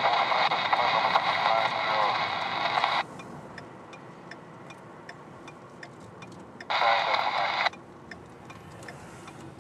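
Kenwood TH-28A handheld airband receiver: a hissy, tinny radio transmission with a faint voice buried in static, which cuts off abruptly about three seconds in as the squelch closes. A second short burst of static follows about seven seconds in.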